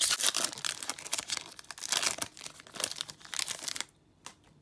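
Foil booster pack wrapper being torn open and crinkled in the hands: a dense crackling that stops a little before the end, followed by a few faint clicks.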